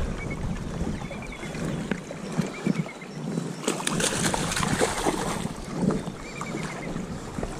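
Shallow river water running over a riffle, with a hooked rainbow trout thrashing and splashing at the surface about four seconds in.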